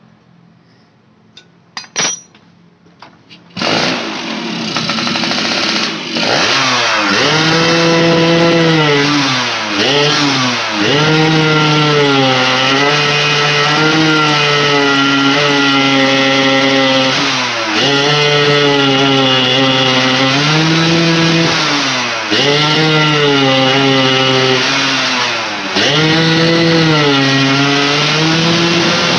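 A few tool clicks, then the Yamaha F1ZR's two-stroke single-cylinder engine starts about four seconds in and is revved again and again, the pitch climbing, holding and dropping back each time. These are test revs after a replacement ignition coil; the mechanic judges that the coil helps only a little and the ignition is still too weak for the engine to rev out fully.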